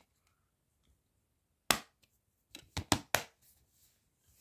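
Sharp plastic clicks from a DVD case being handled: one click about a second and a half in, then a quick run of four near the three-second mark, as the disc is pressed onto its centre hub and the clear plastic case is snapped shut.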